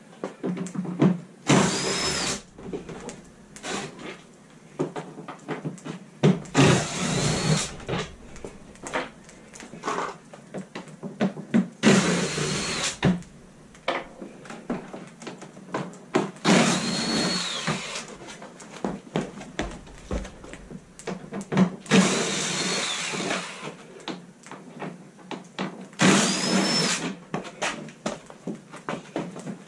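Cordless drill-driver running in short bursts, about six runs of a second or so each, its motor whine rising and falling as it backs out the snowmobile hood's fasteners. Knocks and clicks of panels and parts being handled fall between the runs.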